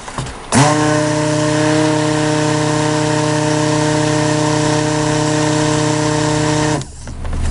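A 200-watt immersion (stick) blender runs in raw soap batter, emulsifying the oils and lye toward trace. It is switched on about half a second in, runs at a steady pitch for about six seconds, then cuts off near the end.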